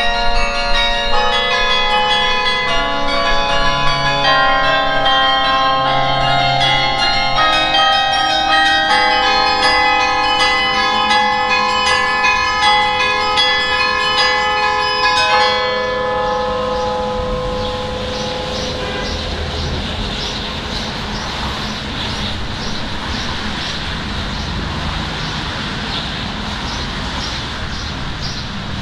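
Carillon bells playing, many tuned bells struck in quick succession, until about halfway through. Then the playing stops and the last notes ring away over a steady noise with a faint regular ticking about twice a second.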